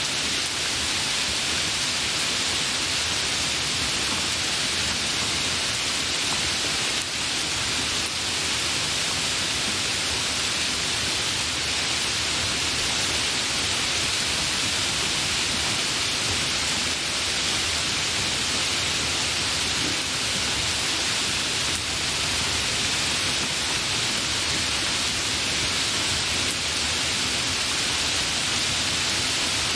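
Hard rain falling: a steady, dense hiss with no let-up and no thunder.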